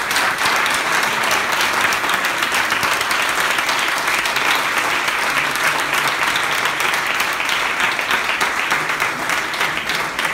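Audience applauding, a dense, steady ovation from many hands clapping at once at the close of a speech.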